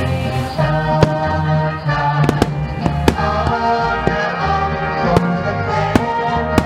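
Aerial firework shells launching and bursting, about ten sharp bangs at uneven intervals, over loud music with a heavy bass line.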